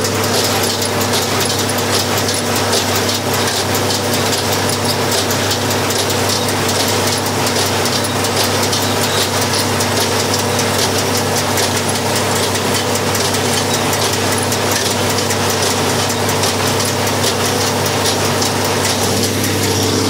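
Farm tractor engine running steadily at a constant speed, a loud even drone with no change in pace.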